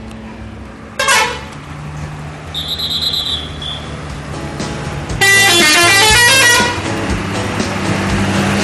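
Bus telolet horn, a multi-tone musical air horn, playing a quick run of changing notes for about a second and a half midway, the loudest sound. A shorter horn blast comes about a second in and a high steady tone near three seconds, over the low rumble of engines and traffic.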